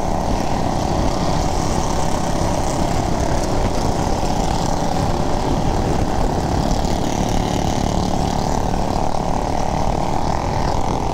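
Motorcycle on the move: steady engine noise mixed with wind rushing over the microphone.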